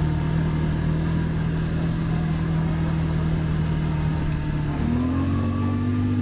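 ATV engine running steadily, its pitch shifting about five seconds in as the throttle changes.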